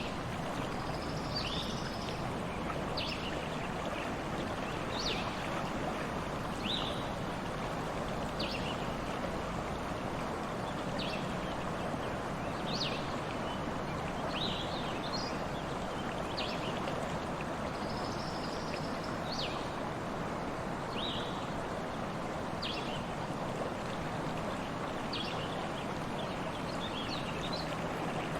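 Stream water flowing steadily, with a bird giving short high chirps about once a second over it.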